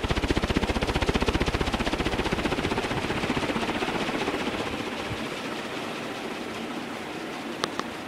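Dayton 56-inch heavy-duty commercial ceiling fan running, its blades whooshing past in a rapid, even pulse that fades steadily. A couple of faint clicks near the end.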